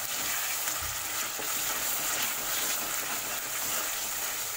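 Chicken pieces in masala frying in ghee in a kadai, sizzling steadily, while a steel spatula stirs and scrapes through them.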